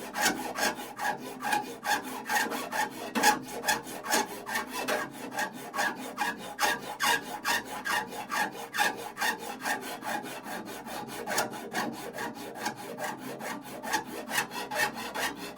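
Hand file rasping across metal in quick, even strokes, about three to four a second.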